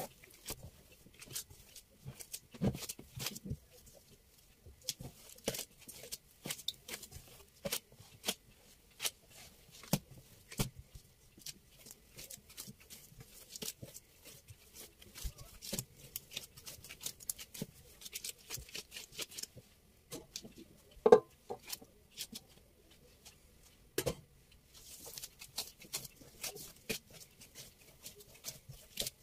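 Irregular soft taps, clicks and rustles of food and utensils being handled at a kitchen counter, with a sharp ringing knock about 21 seconds in and another knock near 24 seconds.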